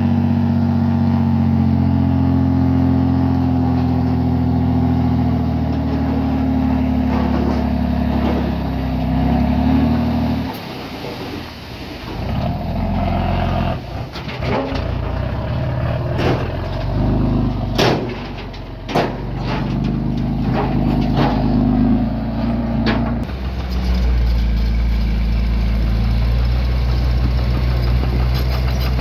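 Diesel engine of earth-moving machinery running steadily, dropping off about ten seconds in. Several sharp metallic clanks and knocks follow, then the engine settles back into a steady, lower run for the last few seconds.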